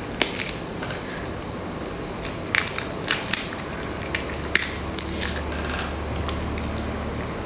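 Shell of a large cooked prawn being peeled apart by hand: scattered sharp cracks and crackles as the shell breaks, with soft wet squishing of the sauced meat. A steady low hum comes in about four seconds in.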